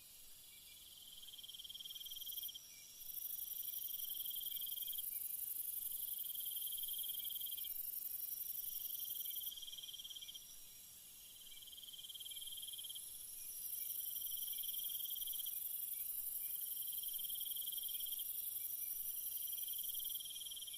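Night insects chirping in a jungle chorus: a very high, shrill trill that drops out about ten seconds in and comes back a few seconds later, over a lower chirp repeating in pulses about a second long.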